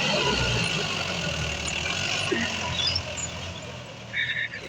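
Heavy diesel engine running steadily, a little quieter after about three seconds.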